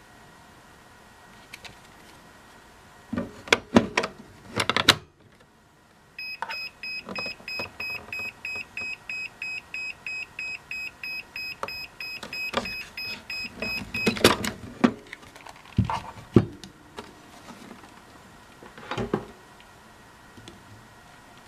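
Makita DC18RC charger beeping in a quick run of short high beeps, about three a second for some eight seconds, its alarm that the worn-out BL1430 14.4V battery cannot be charged. Plastic clicks and clunks of the battery being slid onto the charger come just before, and more clunks follow as it is handled again.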